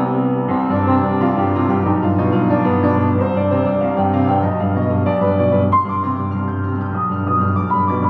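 Solo piano playing a composed piece: held chords over low bass notes, with a fresh struck chord a little before three-quarters of the way through and higher notes entering near the end.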